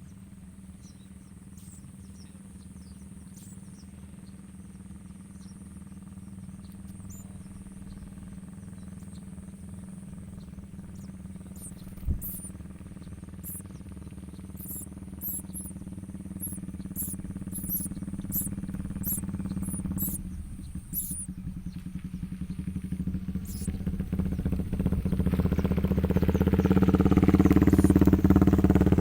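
A motorcycle engine running steadily and growing much louder over the last few seconds, its pitch falling as it comes close. A run of short, very high bird chirps, several a second, sounds through the middle, and there is a single sharp click about twelve seconds in.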